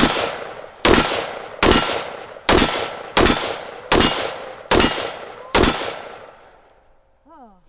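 AR-15-style semi-automatic rifle fired eight times in steady succession, about one shot every 0.8 seconds, each shot echoing and dying away before the next.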